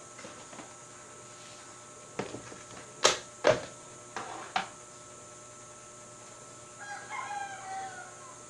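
Small parts clattering in a plastic tub as a hand rummages through it, several sharp knocks in quick succession, the loudest about three seconds in. Near the end a rooster crows once for about a second and a half.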